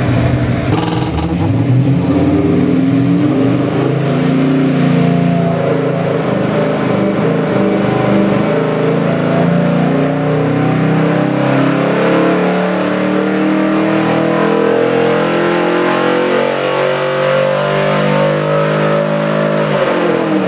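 347 cubic-inch stroker small-block Ford V8, 302-based, running on an engine dyno. It pulls up under load from idle in a steady rise in pitch to about 5,600 rpm, then the revs drop sharply right at the end as the throttle closes.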